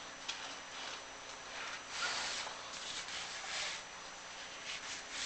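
Soft, irregular scraping and rubbing as a chimney inspection camera and its cable slide down inside a clay-tile flue, brushing the tile walls.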